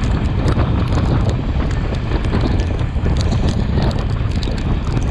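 Wind buffeting the microphone at the window of a moving Sri Lanka Railways Class S11 diesel multiple unit, over the train's steady running noise on the track, with frequent light ticks.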